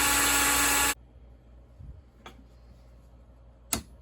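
Electric drill running at a steady pitch, grinding out a bar-tip rivet, and cutting off about a second in. Near the end a single sharp metal strike, a ball peen hammer hitting a punch.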